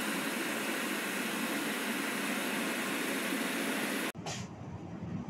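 A steady, even rushing noise with no rhythm or pitch, of the kind a fan or extractor makes. It cuts off abruptly about four seconds in and is followed by quieter room sound.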